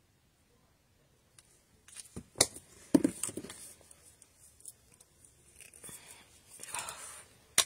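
Stampin' Blends alcohol markers being handled: sharp plastic clicks about two and three seconds in as a cap is snapped on and the marker is set down, then rustling as the next marker's tight-sealing cap is worked loose, and a sharp click near the end as it comes off.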